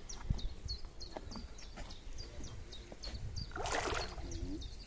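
A hooked fish thrashes at the lake surface about three and a half seconds in, a short burst of splashing while it is being played and is not yet tired. A bird keeps repeating a short, high, falling chirp, about three a second.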